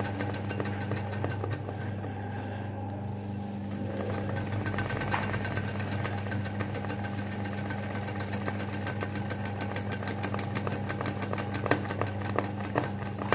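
Electric sewing machine running steadily while it does free-hand machine embroidery, its motor humming under a rapid, even patter of needle strokes, with a few sharper clicks near the end.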